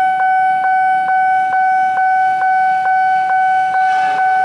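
Railway level-crossing warning alarm sounding for an approaching train: a loud steady high electronic tone, broken by a short click a little over twice a second.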